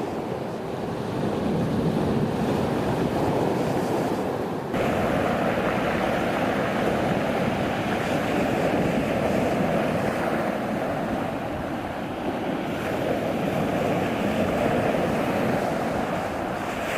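Stormy sea: waves and surf rushing steadily with wind over it. The sound changes suddenly about five seconds in, where one recording is cut to another.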